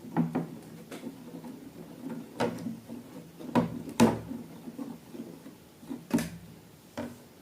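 Handling noises: a string of sharp clicks and knocks, about eight in all, the loudest about four seconds in, over a faint low hum.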